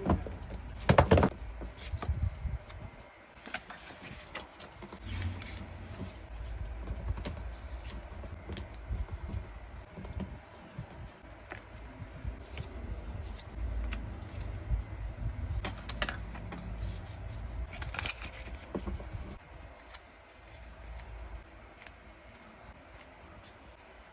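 Irregular clicks, taps and short rustles of small objects and packaging being handled close to the microphone, loudest about a second in.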